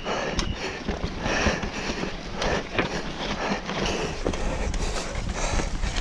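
Downhill mountain bike running fast over rocky dirt: tyres on dirt and stones, with the frame, chain and suspension rattling and knocking at every impact.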